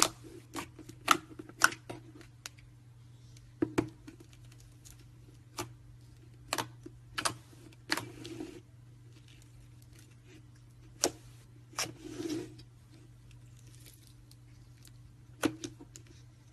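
About a dozen sharp clicks and knocks of small objects being handled and set down, irregularly spaced, over a steady low hum.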